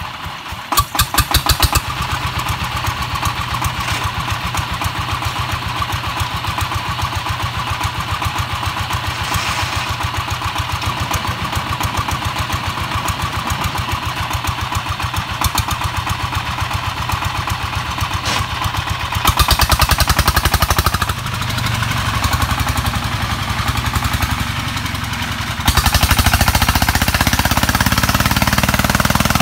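Single-cylinder diesel engine of a công nông farm vehicle running with a rapid, even beat of firing strokes. It revs briefly about a second in and grows louder twice, about two-thirds of the way through and again near the end.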